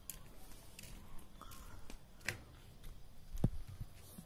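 Faint scattered clicks and knocks from a phone camera being handled while its holder walks, with one dull thump about three and a half seconds in.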